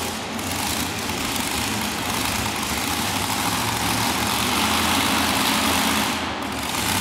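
Modified pulling tractor's engine idling steadily after a pull, a low rumble with a broad hiss over it.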